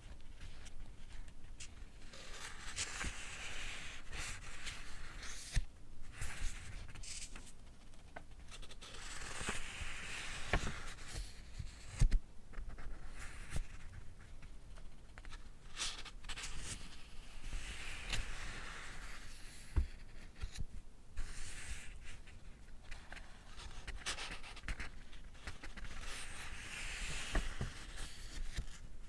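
Pages of a paperback book being turned: a soft papery swish every several seconds, four in all, with small taps and ticks of paper and fingers between them.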